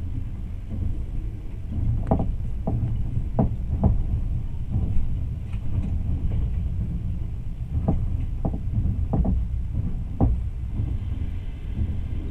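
Train running on rails with a steady low rumble, its wheels clacking over rail joints in two clusters of about four knocks each, one about two seconds in and one about eight seconds in.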